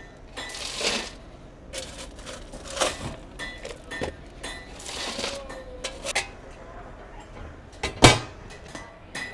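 Coal and a coal bucket being handled: scattered clinks and knocks with short rattling rushes of coal, the loudest a sharp knock about eight seconds in.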